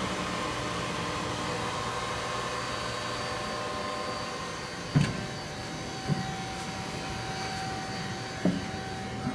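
Steady machinery hum with a few thin, even tones running through it. Three short knocks come about five, six and eight and a half seconds in.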